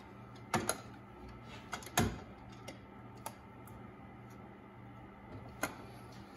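A handful of sharp, scattered clicks and knocks as large tongue-and-groove pliers grip and turn the Audi 2.0T's oil filter housing to loosen it, over a steady low hum.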